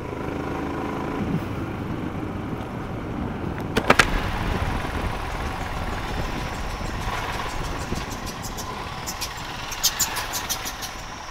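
Royal Enfield Himalayan motorcycle's single-cylinder engine running steadily under way, with road noise. A sharp knock comes about four seconds in, and a patter of clicks near the end.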